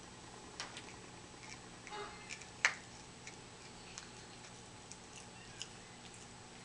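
Ring-tailed lemur chewing and biting willow leaves and twigs: scattered sharp clicks and crunches at irregular intervals, the loudest a little over two and a half seconds in.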